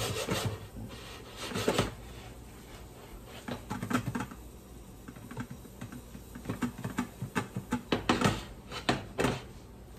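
A lidded pan being shaken and slid across a glass-top electric stove: an irregular string of quick clicks, scrapes and rattles of the metal pan and its lid against the cooktop, busiest in the second half.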